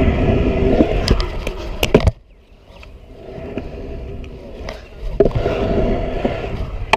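Stunt scooter wheels rolling over pavement, with sharp clacks of the deck and wheels hitting the ground. The rolling cuts off suddenly about two seconds in, stays quieter for a few seconds, then picks up again and ends in a sharp clack.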